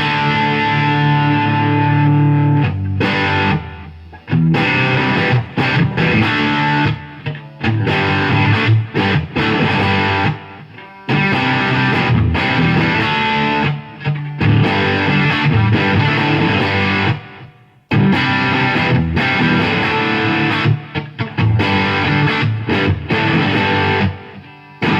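Gretsch Pro Jet electric guitar on its bridge pickup, played through a Blues Driver overdrive pedal and amp, with crunchy ringing chords and riffs. The playing stops briefly a few times, about four seconds in, near ten seconds, near eighteen and just before the end.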